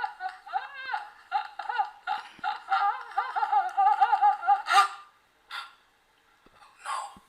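A dubbed voice track playing back: a very high-pitched, cartoon-like voice chattering in quick syllables, stopping about five seconds in, followed by a couple of short sounds.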